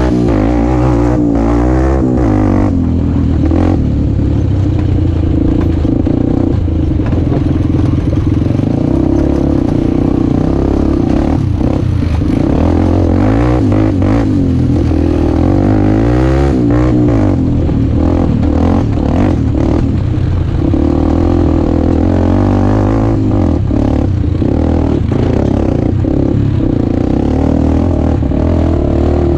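Honda CRF250X dirt bike's single-cylinder four-stroke engine running hard, its pitch rising and falling as the throttle is worked on a rough trail. Bits of clatter as the bike rides over the ruts.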